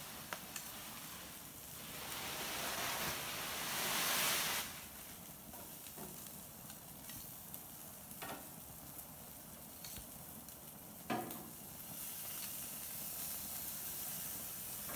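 Steady sizzling hiss of grilled salmon steaks, swelling louder about three to four seconds in. A few faint clicks and one sharper knock about eleven seconds in.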